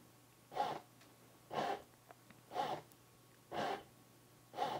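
Fleshlight Launch's motor driving its stroker carriage end to end at maximum speed: five short bursts about a second apart, one per stroke, with a pause between each.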